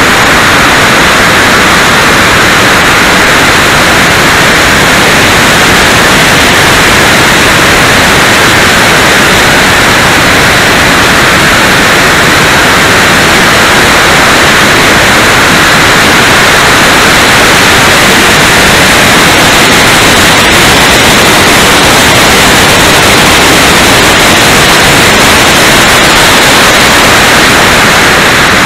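Twin 70 mm electric ducted fans of an E-flite Su-30 model jet in flight, heard from on board along with the rush of air. It is a loud, steady, hiss-like noise that holds at one level throughout.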